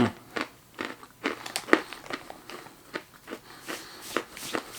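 Hard pretzel pieces crunching irregularly as they are chewed, with some crinkling of the snack bag.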